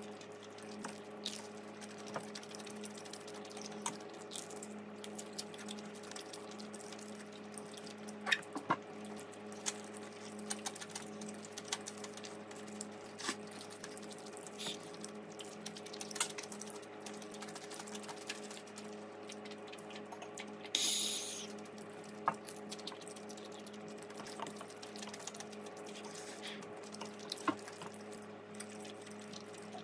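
Close-up mukbang eating sounds: wet chewing and small mouth and chopstick clicks while eating spicy kimchi buldak stir-fried noodles, with one longer noodle slurp about two-thirds of the way through. A steady low hum runs underneath.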